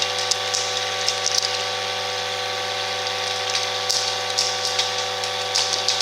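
Vibratory sorter bowl feeder running with a steady hum. Plastic screw caps rattle and click irregularly as they travel round its track.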